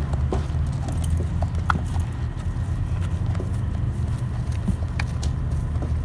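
A ridden horse's hooves falling on dirt as it circles, heard as faint scattered knocks over a steady low rumble.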